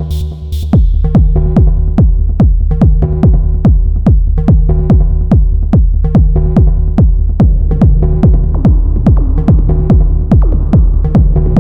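Elektron Model:Cycles groovebox playing a techno pattern: a steady four-on-the-floor kick with pitched percussive hits over a droning bass. The high hi-hats drop out about half a second in, and a noisy texture builds in the second half.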